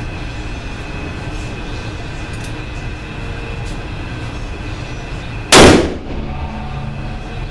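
A single shot from a .460 S&W Magnum handgun about five and a half seconds in, very loud with a short echo, over a steady background hum.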